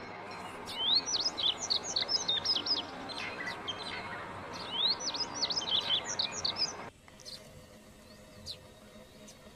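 A songbird chirping in two quick runs of sharp, sweeping high notes over a steady background hiss, which drops away abruptly near the end.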